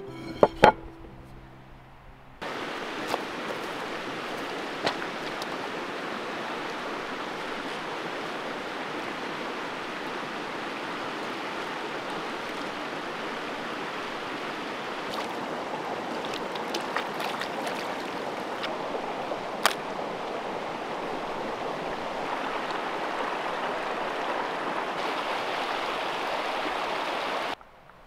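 Shallow stream running over stones, a steady rushing, with a few sharp clicks scattered through it; it starts abruptly a couple of seconds in and cuts off just before the end. At the very start, a couple of knocks as a dark bowl is set down upside down on a wooden plate.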